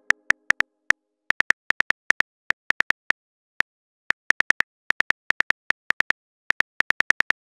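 Smartphone keyboard typing clicks, the app's key-tap sound effect: short, identical ticks in uneven runs of two to five, with brief pauses between runs, stopping shortly before the end.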